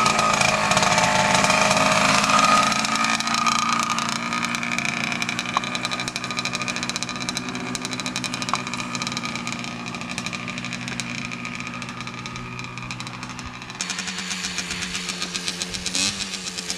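Gas Gas TXT Boy youth trials motorcycle's small two-stroke engine running at low, steady revs, loudest near the start and then fading as the bike moves off. About 14 seconds in, the sound changes abruptly.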